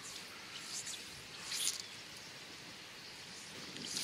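Steady hiss of running river water, with a few short, high swishes of a fly line being cast, the loudest about a second and a half in.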